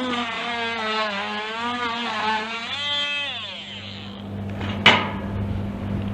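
An electric power tool's motor running, its pitch wavering under load as it cuts into the waterproofing, then switched off and spinning down about three seconds in. A single sharp knock follows near the end, over a steady low hum.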